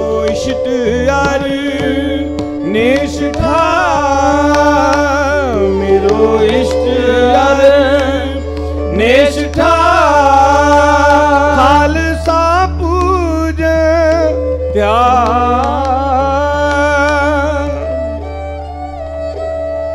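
Gurbani kirtan music: bowed taus and dilruba carry a gliding melody with vibrato over held drone notes, with tabla strokes beneath. The melody comes in phrases with short dips in between.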